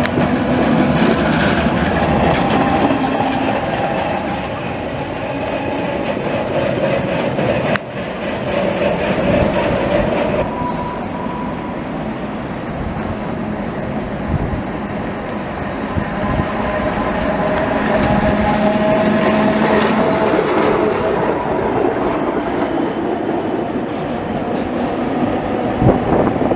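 Vintage electric trams running on street track: a steady rumble of steel wheels on rails, with faint whining tones over it. The sound changes abruptly a couple of times.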